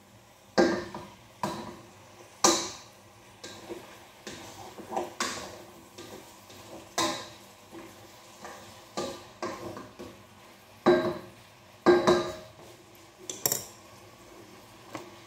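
Wooden spatula stirring in a metal cooking pot, knocking and scraping against its sides and rim. The sharp clacks, each with a short ring, come about once a second, some much louder than others, with a quick cluster of clicks near the end.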